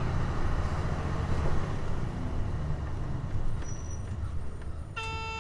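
Hino Blue Ribbon KC-HU2MMCA city bus engine and running noise heard from inside the cabin, a steady low rumble. Near the end a short electronic chime sounds for under a second.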